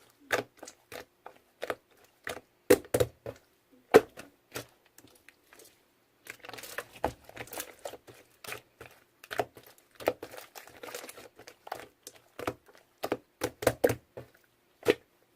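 Close, irregular clicks, taps and crinkling rustles, with a faint steady hum underneath.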